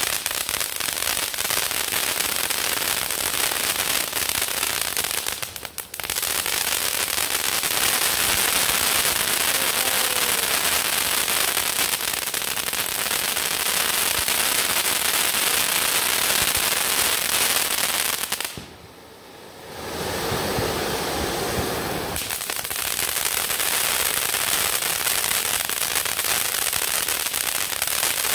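Ground firework fountains burning: a loud, steady hiss of spraying sparks, thick with fast crackling. The sound drops away briefly twice, about six seconds in and again for about a second near two-thirds of the way through, then picks up again.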